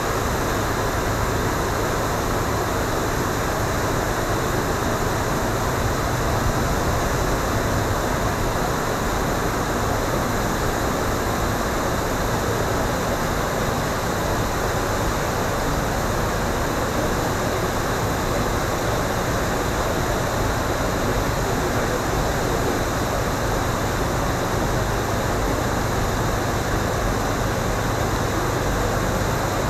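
Steady rushing noise with a low hum underneath, from a river cruise boat's engine running and water moving around the hull in a lock chamber.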